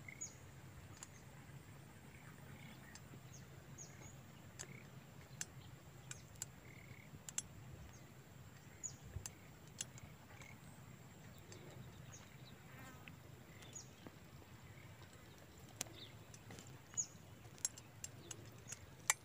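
Faint outdoor field ambience: scattered short bird chirps and small clicks over a steady low hum and a thin, steady high tone.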